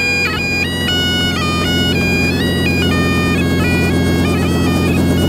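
Highland bagpipes playing a stepping melody with quick grace notes over steady drones. Underneath, a helicopter's rotor chop grows louder toward the end.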